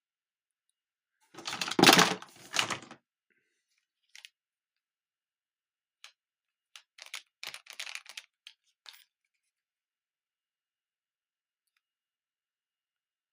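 Plastic Hot Wheels track pieces clattering and clicking as they are handled and sorted, with a loud burst of rattling about a second and a half in and a run of quick light clicks a few seconds later.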